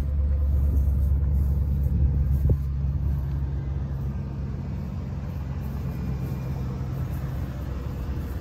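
2008 Dodge Ram 1500 pickup's engine idling: a steady low hum that fades a little, with one short click about two and a half seconds in.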